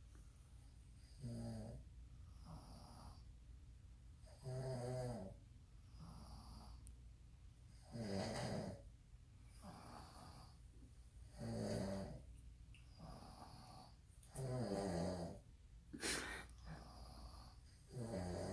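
A father and son snoring loudly in their sleep: a big snore about every three and a half seconds, with fainter snores in between, and one shorter, sharper snore near the end.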